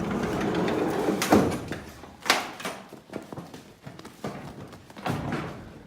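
Scraping and rustling noise, then a few sharp knocks, the loudest about one and a half and two and a half seconds in.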